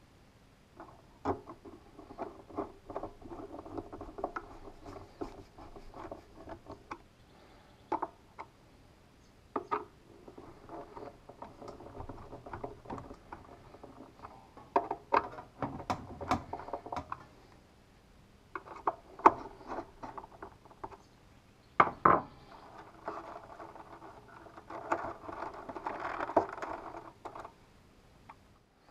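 Handling noise from hands working inside an open transceiver chassis: clicks, knocks and rubbing as wiring and parts are pushed back into place. The sounds come in short bursts with pauses, and the sharpest knocks fall past the middle.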